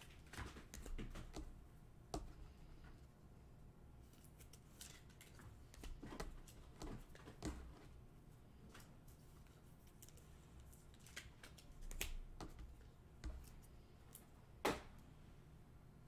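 Faint, irregular clicks and brief rustles from small objects being handled at a desk, a dozen or so short sounds with gaps between them.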